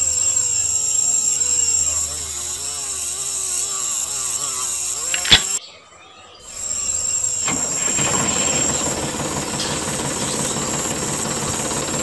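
Small engine-like running sound for a miniature walking-tractor model as its starter cord is pulled, the pitch wavering up and down. A sharp click ends it about five seconds in. After a brief gap a rougher, steady engine-like running noise follows.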